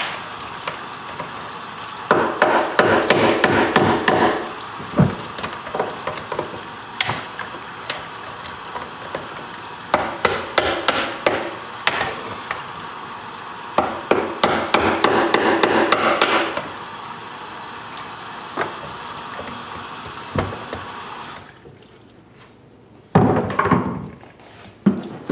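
A hammer driving a metal hand tool into a boiled cattle skull, in bursts of rapid knocks of metal on bone, to knock the ear bone loose. A steady hiss of water running from a hose into the sink underneath stops about 21 seconds in, and a last flurry of knocks follows.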